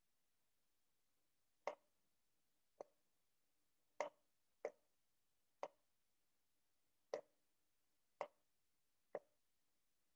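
Computer mouse clicking, about eight short, separate clicks at uneven intervals, over near silence.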